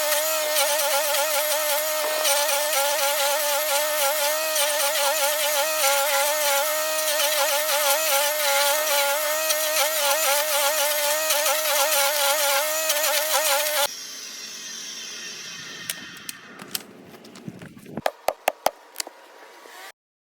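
Stump grinder running at full throttle, a loud, steady, high-pitched machine drone that wavers slightly. About fourteen seconds in it cuts to a much quieter stretch with a falling whine and several sharp clicks near the end.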